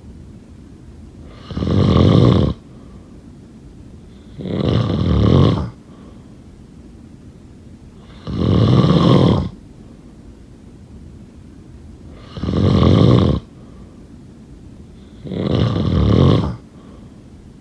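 A sleeping person snoring: five rasping snores, each about a second long, coming about every three and a half to four seconds.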